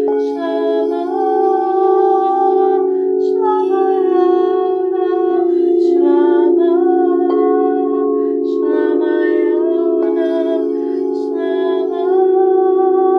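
A woman chanting an Aramaic mantra in a slow held melody over a steady drone of several sustained tones like a singing bowl. A short hiss comes at each repetition about every two and a half seconds.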